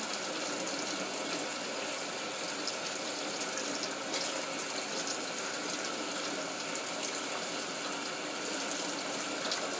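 Kitchen tap running steadily into the sink as fresh eggs are washed under it by hand, with a few faint clicks.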